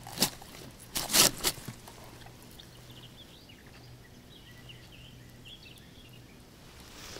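A few sharp rustles and knocks in the first second and a half as a carp is handled and lifted out of a landing net, then faint bird calls over quiet outdoor background.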